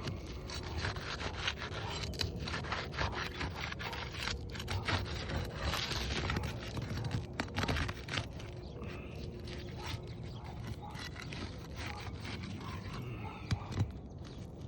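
Brittle asphalt roof shingles being pried up to break their seal strips, with scraping and crackling as the sealant tears loose.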